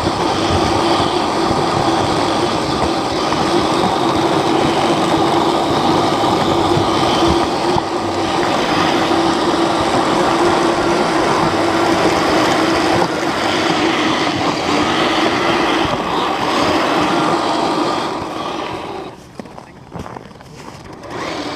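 Radio-controlled model vehicle's electric motor and gear drive running hard with a steady whine and drivetrain clatter. It cuts off about 19 seconds in, leaving a few faint clicks.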